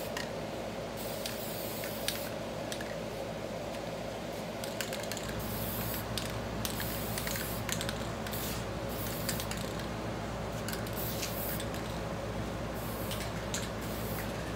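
Spray paint hissing in short repeated bursts as it is sprayed onto a wedding dress's skirt to grime it up, over a steady background hum; a deeper low hum starts about five seconds in.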